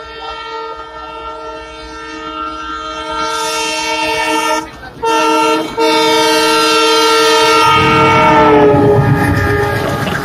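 Goods-train locomotive horn sounding as the train approaches, growing louder, broken twice briefly around the middle. Its pitch drops as the locomotive passes about eight seconds in, and the rumble of the wheels and wagons passing close by follows.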